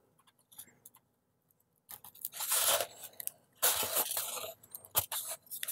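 Nylon pinned hinge scraping and crunching against balsa wood as it is forced into a cut hinge slot. It will not seat because it is being pushed in the wrong way round. It is quiet for about two seconds, then comes a series of short scrapes and a sharp click near the end.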